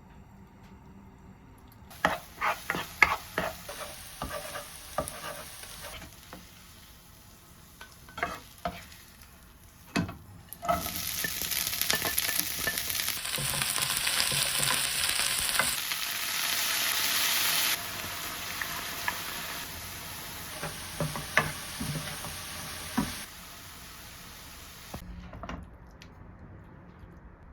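Food sizzling and frying in a pan, with a utensil clinking and knocking against the pan during the first several seconds. The sizzle then runs as a dense hiss that jumps in level several times and stops a couple of seconds before the end.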